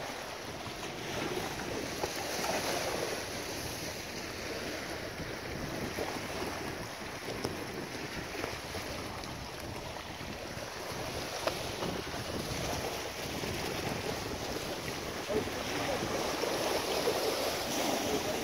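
Sea surf washing against shoreline rocks, with wind buffeting the microphone; the wash swells a little about two seconds in and again near the end.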